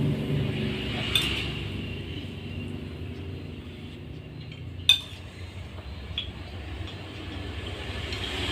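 Occasional clinks of plates and spoons during a meal, one sharp clink about five seconds in louder than the rest, over a low steady hum.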